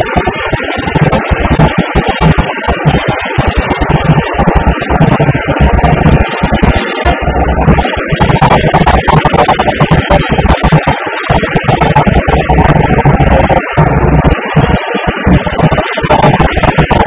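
Loud music with guitar.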